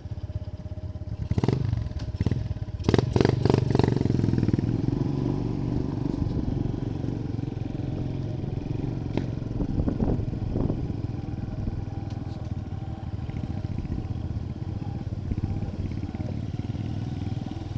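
Small motorcycle engine running under way on a rough gravel road, with the clatter of the ride. A cluster of sharp knocks comes a couple of seconds in, and the engine gets louder soon after.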